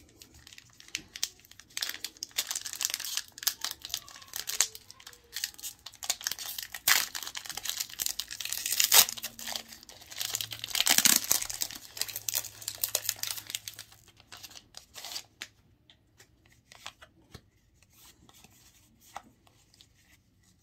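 Foil booster-pack wrapper crinkling and being torn open by hand, the loudest rips about halfway through. Then sparse faint clicks of trading cards being handled.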